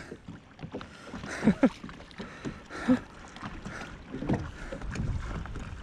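Water lapping against a plastic sit-on-top kayak, with wind rumbling on the microphone and a few short sighs and murmurs from the paddler about one and a half, three and four seconds in.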